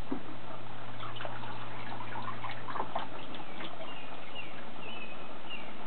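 Water trickling and splashing as a toddler pours it from a small plastic cup into a plastic water table, a thin stream that sounds like someone peeing.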